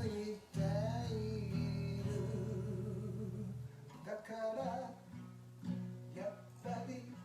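Acoustic guitar strummed under a singer who holds one long note with vibrato. About four seconds in the voice drops out and the guitar goes on more softly, plucking single notes and chords.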